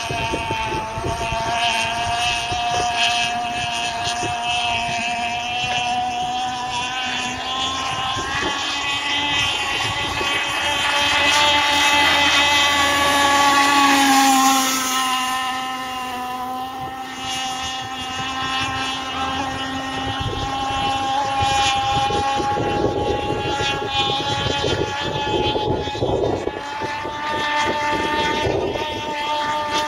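Fully modified Redline Zenoah two-stroke petrol engine of an Insane Cat Gen 2 RC speedboat running flat out with a steady high-pitched whine. It gets louder as the boat passes close about halfway through, then fades a little as it moves off.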